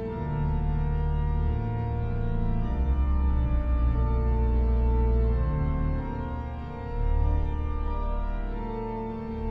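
Salisbury Cathedral pipe organ, sampled and played through Hauptwerk: slow sustained chords over deep pedal notes, changing every second or two.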